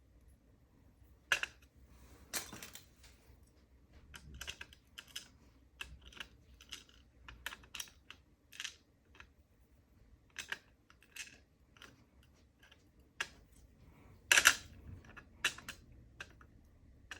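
Irregular small clicks and light metallic taps of a disassembled Lockwood oval cylinder's pins, springs and plug being handled and set down, with the loudest cluster about fourteen seconds in.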